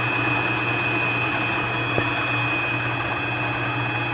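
Benchtop mini lathe running steadily under power, a constant motor hum with a thin high whine over it. A single faint click comes about two seconds in.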